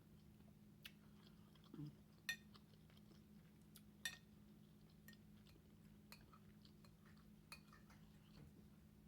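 Quiet eating sounds: a fork clinking against a plate a handful of times, sharpest about two and four seconds in, with soft chewing between. A faint steady low hum underneath.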